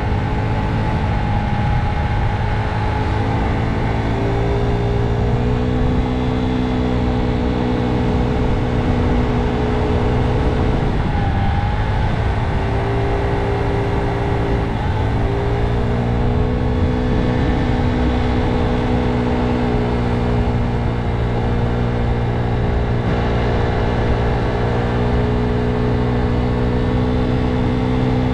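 Motor scooter running at a steady cruise, its engine note even for most of the ride. Twice, about eleven and fifteen seconds in, the pitch briefly drops and then rises again as the scooter eases off and speeds back up.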